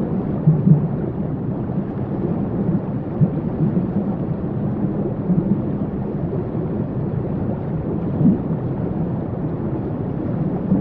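Waterfall: a steady, low rushing of falling water, with a few brief louder spurts.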